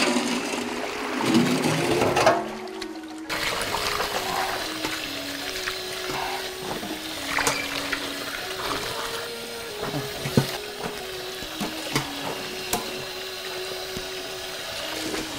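Water sloshing in a steel basin as hands wash red chili peppers, loudest in the first three seconds, then drips and small splashes as handfuls of peppers are lifted out of the water. Background music plays throughout.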